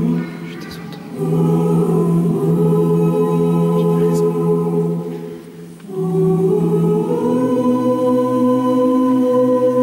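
Gospel choir singing a cappella in long held chords, dropping away briefly twice between phrases.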